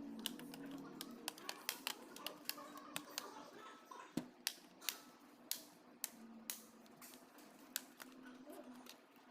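Irregular sharp clicks and snaps, about two or three a second, from small plastic and metal parts of a laptop being handled.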